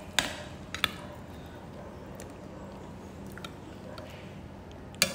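Low background murmur of an outdoor crowd with a steady faint hum, broken by three sharp clicks: two in the first second and a louder one near the end.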